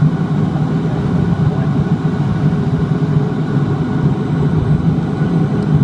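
Cabin noise of a Dash 8-400 on final approach with the landing gear down: the steady drone of its Pratt & Whitney PW150A turboprops and six-bladed propellers over a constant rush of airflow.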